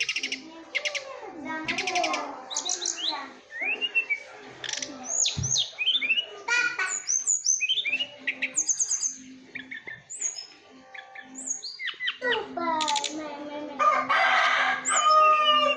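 Tledekan bambu, a small songbird, singing a varied run of short chirps, sweeping whistled notes and trills, with a louder burst of song in the last few seconds.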